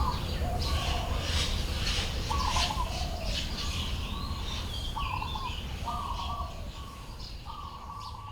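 Birds calling: a repeated short call, about half a second long, comes every second or two, with higher chirps over it and a low steady background rumble; the sound fades away near the end.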